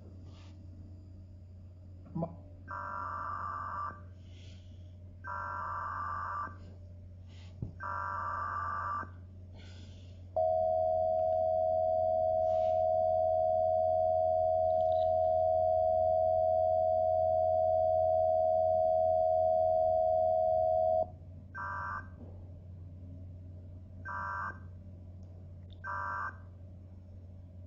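Emergency Alert System tones: three screechy digital data bursts of about a second each, then the steady two-tone attention signal for about ten seconds, then three shorter data bursts. A low steady hum runs underneath.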